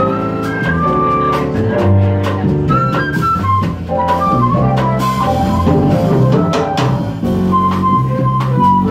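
Live jazz combo: a flute plays the melody over double bass and a drum kit with cymbal strokes.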